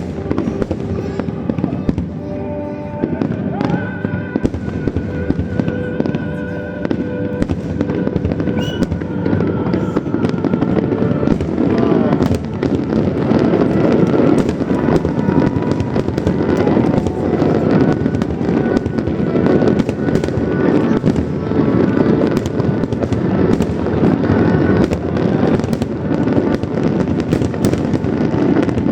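Fireworks display: a dense run of bangs and crackling bursts over background music with held tones, growing thicker and louder about twelve seconds in.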